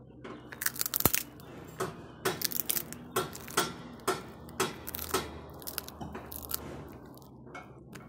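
A dog chewing on something hard, with a series of irregular crisp crunches about one or two a second. The loudest comes about a second in, and they thin out near the end.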